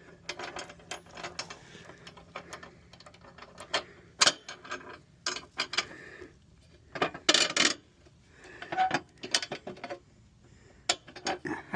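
Metal parts of a riding lawn mower clicking, clanking and scraping in irregular knocks as a part is worked into place by hand, with a louder cluster of clanks about two-thirds of the way through.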